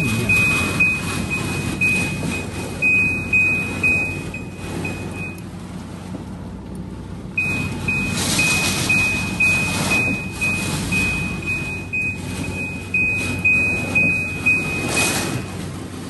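Heavy rain and gusting wind beating on a car, heard from inside, with surges of noise. Over it a high electronic beep repeats about twice a second, stopping for about two seconds partway through.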